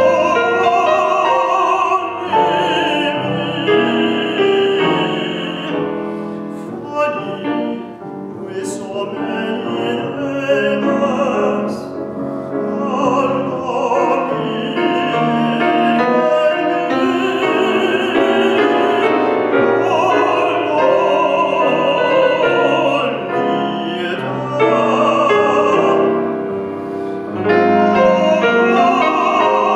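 Operatic tenor singing an aria in long held phrases with vibrato, accompanied by piano.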